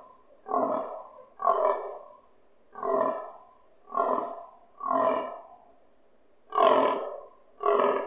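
Fallow deer stag grunting in the rut: a series of about seven short grunts, roughly one a second, with a longer gap about two-thirds of the way through.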